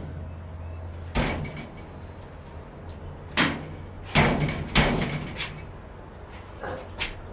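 Fly swatting with an old iPad case: about five sharp smacks at uneven intervals, one to two seconds apart, two of them close together in the middle.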